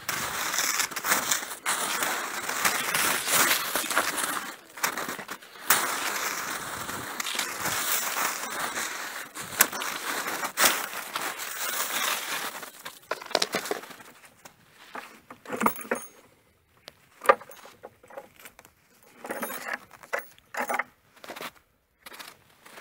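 Footsteps crunching through snow, with clothing and camera-handling rustle, dense for the first dozen seconds, then thinning to scattered crunches and knocks.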